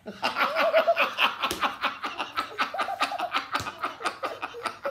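A man and a young boy laughing hard together in a rapid, unbroken run of laughs.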